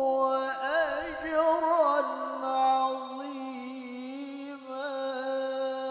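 A man reciting the Quran in the melodic tilawah style, in a high voice, drawing one syllable out into a long sung phrase. Rapid ornamental turns come in the first two seconds, then a long steady held note, with more small turns near the end.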